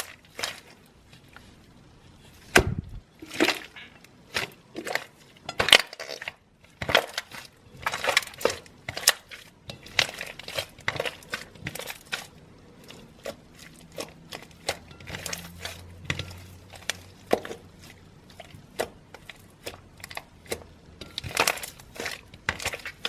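Slime being squeezed and played with by hand, making many irregular sharp pops and clicks.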